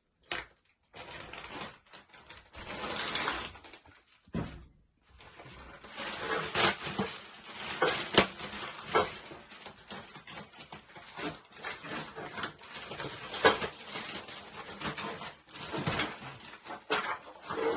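Plastic bag crinkling and rustling as an ironing board is pulled out of it, with scattered clicks and a few knocks.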